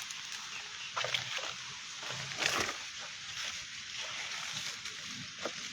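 Strong wind rushing through coconut palm leaves: a steady rustling hiss, with a few short louder rustles or knocks, the loudest about two and a half seconds in.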